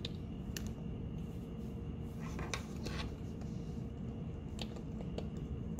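A few faint clicks and rubbing of rubber and plastic as hands pull the self-sealing disc valve out of an M50 protective mask's filter mount, over a steady faint hum.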